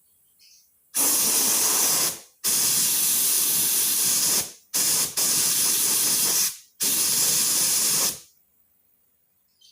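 Compressed air from a homemade refrigerator-compressor air compressor hissing out of a nozzle in five loud bursts, each starting and stopping abruptly, the third very brief.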